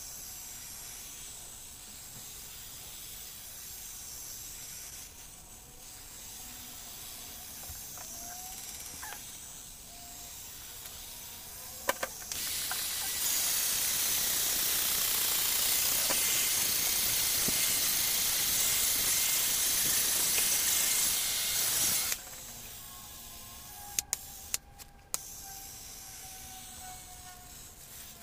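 A click, then a loud steady hiss that lasts about ten seconds and cuts off suddenly, over a low background hiss. A few sharp clicks follow near the end.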